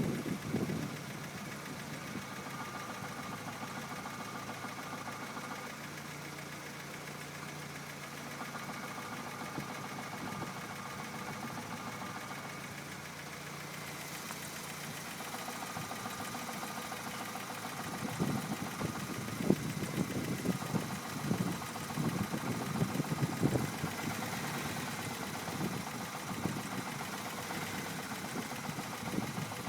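Car engine idling steadily. About eighteen seconds in, an irregular knocking sets in over the idle: the knock that appears with the clutch pedal pressed.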